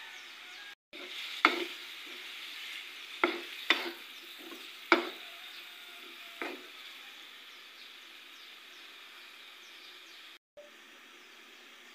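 Squid sizzling as it is stir-fried in a wok, a steady hiss throughout. A utensil knocks against the pan about five times in the first seven seconds as the squid is stirred.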